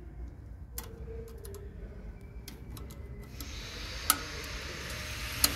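Light metallic clicks and ticks of a screwdriver and small parts being worked on a printer's printhead carriage, with two sharper clicks near the end. A steady hiss comes in a little past halfway.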